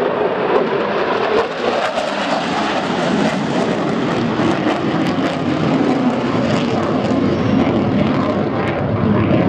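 Engine noise of a fixed-wing display aircraft flying past, with a note that drops lower about a second and a half in.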